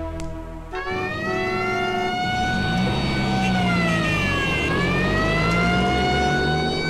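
Police siren wailing in a slow fall and rise over the noise of vehicles driving. It cuts in about a second in, replacing a held music chord.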